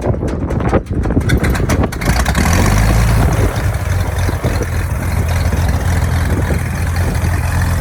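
Cessna 180's remanufactured Continental O-470 flat-six engine being started: it turns over with uneven knocks for about two seconds, then catches and settles into a steady, deep run.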